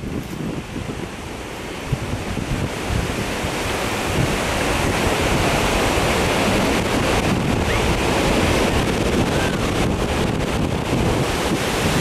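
Pacific Ocean surf breaking and washing up a sandy beach, with wind buffeting the microphone. The wash grows louder over the first few seconds, then holds steady.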